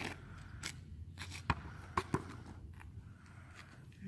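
A basketball bouncing on an asphalt street a few times at irregular intervals, short dull thuds with the clearest pair about two seconds in.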